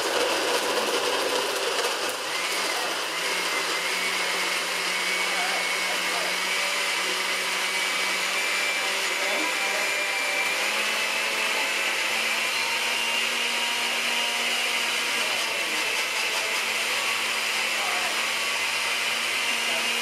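A 30-year-old Osterizer blender running steadily at full power, crushing ice and frozen pineapple chunks in a liquid cocktail mix; its motor pitch rises a little about halfway through.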